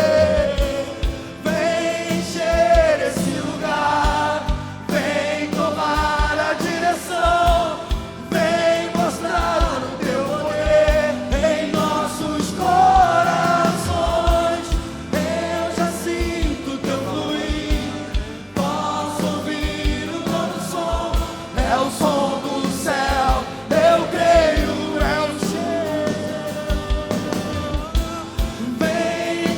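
Live Portuguese-language worship song: voices singing a slow gospel melody over a band with a steady beat.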